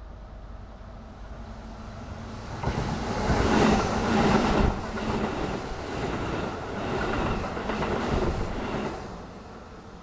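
Electric train running over a level crossing. The noise of its wheels on the rails swells about two and a half seconds in, is loudest around four seconds, and dies away near the end.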